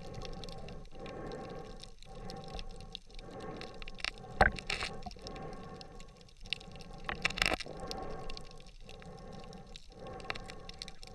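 Muffled underwater water noise from a swimming freediver, with a sharp knock about four seconds in and a short cluster of knocks about seven seconds in.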